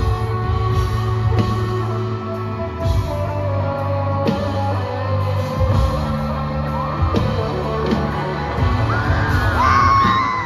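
Rock music with singing. The music is loud throughout and loudest near the end, where a sung note glides up and down.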